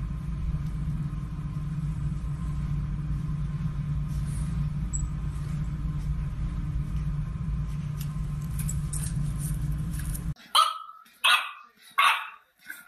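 A steady low hum, then, after a sudden cut about ten seconds in, a French bulldog puppy barks sharply about three times in quick succession at its own reflection in a mirror.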